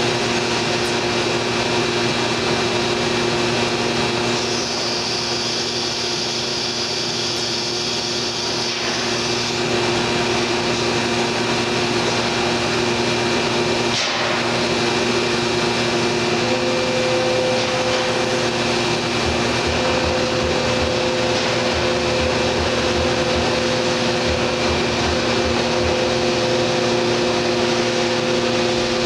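Thermwood C-40 CNC router and its vacuum hold-down pump running steadily, a loud machine hum with several steady tones. A high whine comes in about four seconds in and stops some five seconds later, and there is one sharp click about halfway through.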